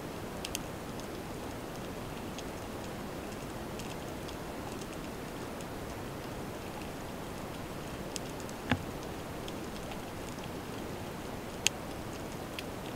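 Underwater ambient noise picked up during a spearfishing dive: a steady hiss with scattered faint clicks and crackles, a sharper knock about two-thirds of the way through and a sharp click near the end.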